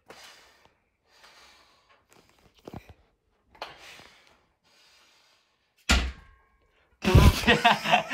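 Heavy breaths and puffed exhales from a man pressing dumbbells on a weight bench, then a single heavy thunk about six seconds in, followed by loud laughter in the last second.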